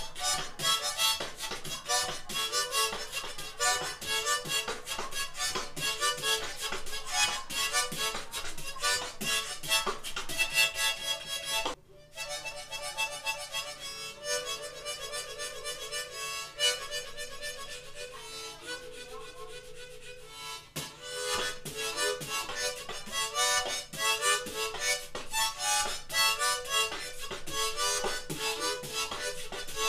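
Harmonica played beatbox-style: a fast rhythmic run of short, percussive notes. About twelve seconds in it breaks off for a moment, then goes into slower held notes, and the fast rhythmic playing comes back after about twenty-one seconds.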